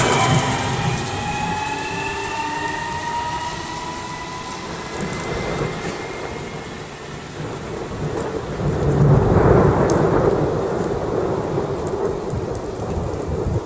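Stuttgart S-Bahn electric train pulling away, its motor whine rising in several pitches and fading over the first few seconds, with rain falling throughout. About eight seconds in, a long roll of thunder swells up, loudest around ten seconds, and slowly dies down.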